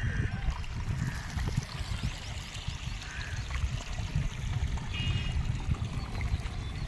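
Water trickling and running into a flooded concrete roof slab being pond-cured, under a steady, uneven low rumble like wind buffeting the microphone. A few short chirps come in near the start and again around the middle.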